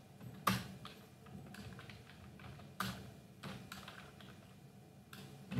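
Computer keyboard typing: a handful of separate, unhurried keystrokes, a few sharper than the rest, about half a second in, near the middle and near the end.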